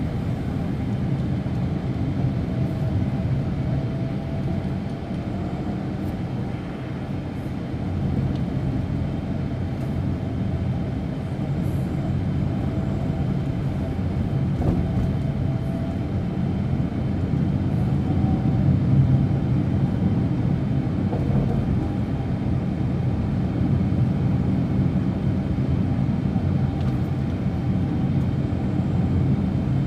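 Steady drone of engine and road noise heard inside a Daihatsu Ayla's cabin as it drives along.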